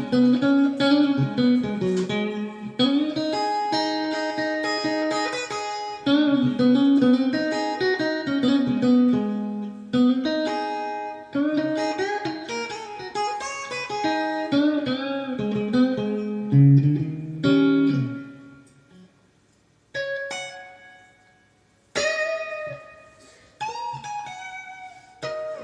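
Electric guitar, a Squier '70s Vintage Modified Stratocaster fitted with Fender Custom Shop Texas Special pickups, played through a Fender Mustang III v2 amp's '57 Deluxe model with spring reverb: a run of lead lines with bent notes. About eighteen seconds in the playing stops briefly, then a few notes and chords are struck one at a time and left to ring out.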